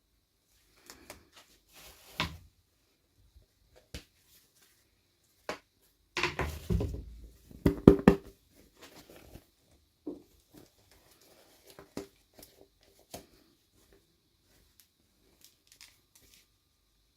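Hands unwrapping miniature toy packaging: scattered crinkles, rustles and small clicks, with a louder stretch of tearing and rustling about six to eight seconds in.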